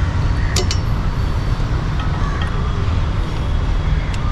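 Steady low rumble of road traffic, with a sharp metal clink about half a second in and another near the end as pliers work at the motorcycle's oil drain.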